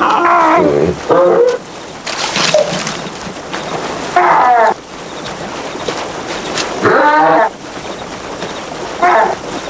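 Early hominids giving short apelike calls, about five of them, over the rushing noise of river water.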